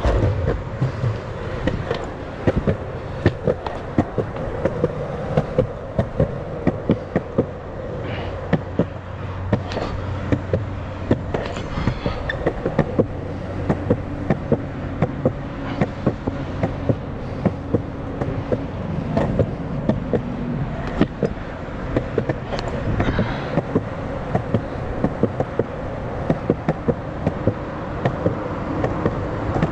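Sector 9 longboard's wheels rolling steadily on a concrete sidewalk, with a sharp clack about once or twice a second as they cross the joints between the slabs.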